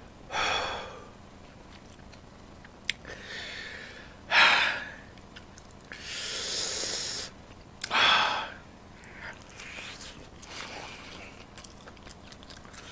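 A man's sharp, hissing breaths drawn in and blown out through the mouth, four of them, the loudest about four and a half seconds in: his reaction to the burn of a very hot chili pepper.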